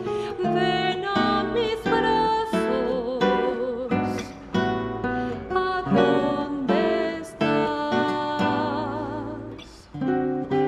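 Classical nylon-string guitar playing a solo melodic passage of plucked notes that ring on. It thins out briefly near the end and then picks up again.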